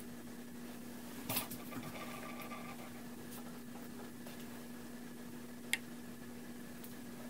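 Hands and long fingernails working bobby pins into curled hair: a cluster of clicks and rustling about a second in, and one sharp click near the end, over a steady low hum.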